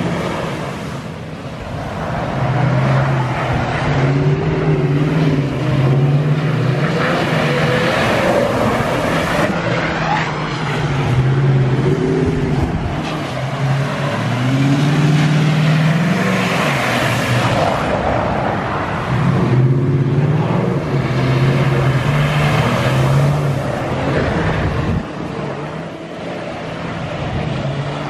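Truck engine revving up and down again and again as it drives through floodwater, with a rushing hiss of water spray that swells several times.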